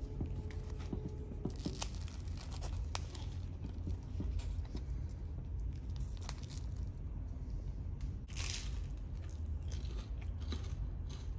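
Crisp, charred Neapolitan pizza crust crackling and tearing as slices are pulled apart by hand. The crackle comes in two louder spells, about two seconds in and again about eight seconds in, over a steady low hum.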